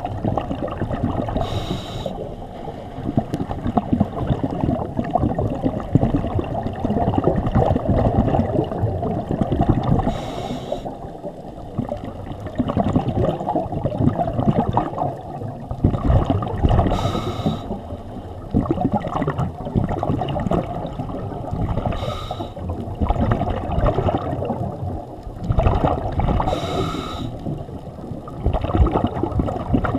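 Scuba regulator breathing, heard underwater: a short hiss on each inhalation about every five to six seconds, and a long stretch of bubbling exhaled air between them.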